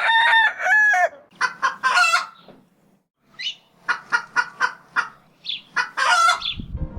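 A rooster crowing, followed by a run of short clucks that stops abruptly near the end.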